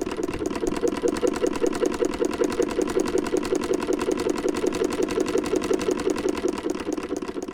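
Electric sewing machine stitching at a steady fast rate, about ten stitches a second, fading out at the very end.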